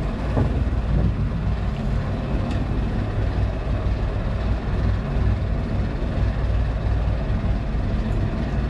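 Small wooden fishing boat's engine running with a steady low drone, under a constant rush of wind and water noise.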